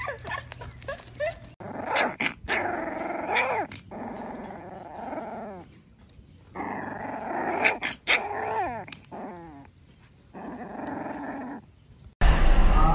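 A small black-and-tan puppy growling in repeated short bursts, at a finger poking its face.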